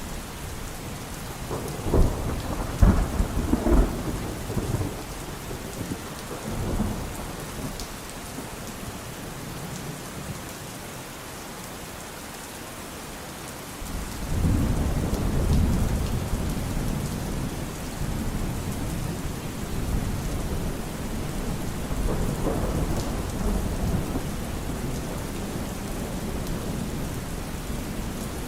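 Steady rain falling with thunder: a cluster of sharp cracks a couple of seconds in, then a long low rolling rumble building about halfway through and swelling again near the end.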